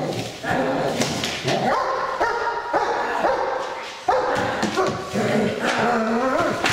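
German shepherd barking and whining in excitement while held back on a line, with a short pause just before the middle and a few knocks.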